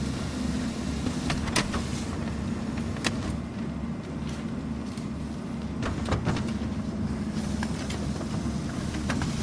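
Office printer running with a steady mechanical hum, broken by a handful of sharp clicks at irregular intervals.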